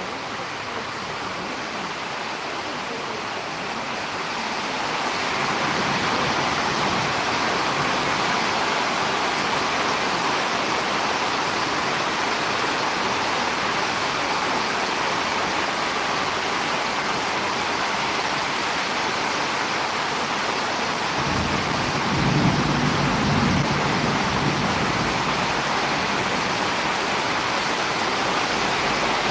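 Steady rushing noise of storm wind and rain, growing louder a few seconds in. About two-thirds of the way through, a low rumble of wind buffeting the microphone joins it.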